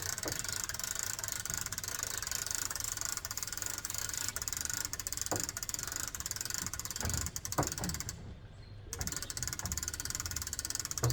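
Fishing reel being cranked, a steady fast ratchet-like clicking that stops for about a second near the end and starts again. There are a few soft knocks from handling the rod.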